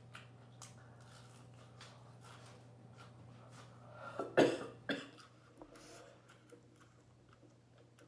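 A woman coughs twice in quick succession about four seconds in, the first loud and the second softer, with small mouth clicks from chewing around them.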